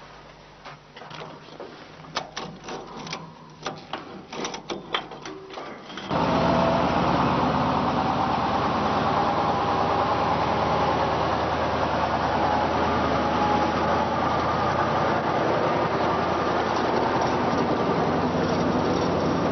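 Scattered clicks and knocks, then about six seconds in a loud, steady machine noise starts suddenly and keeps running.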